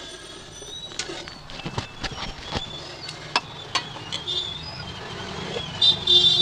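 Metal pot lids clinking and knocking as they are lifted off and handled over the cooking pots: a series of sharp metallic clicks. Short high chirps sound in the background, and near the end a loud, high-pitched, horn-like tone comes in.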